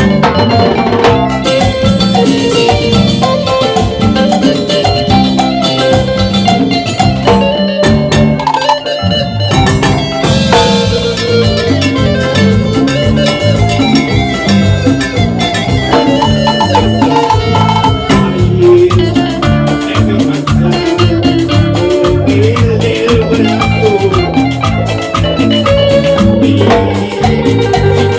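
Live band playing an upbeat Latin dance tune with a steady beat; the low end drops out briefly about nine seconds in.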